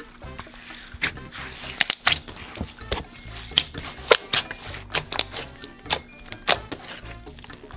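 Store-bought slime being kneaded and squeezed by hand, giving a run of irregular wet clicks and pops, with background music underneath.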